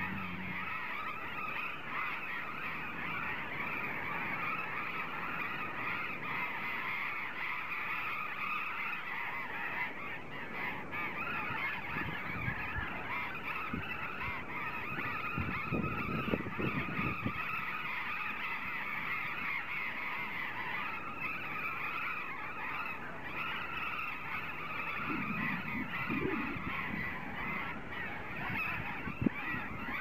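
A colony of burrowing parrots calling continuously, many birds at once making a steady chorus of harsh calls.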